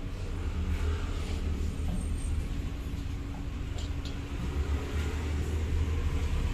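Steady low rumble of ambient background noise, with two faint ticks about four seconds in.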